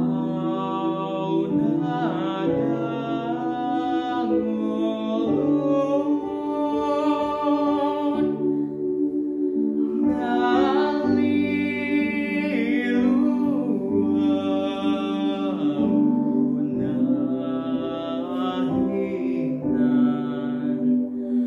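A young man singing solo with vibrato, holding long notes and gliding between them, over a steady instrumental accompaniment of sustained chords.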